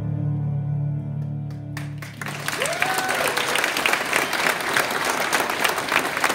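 A man's voice holds the song's last sung note over a piano, fading out; about two seconds in, an audience breaks into loud applause that carries on.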